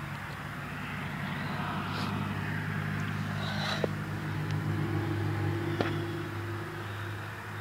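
Steady low motor hum with two sharp clicks, one near the middle and one about two seconds later.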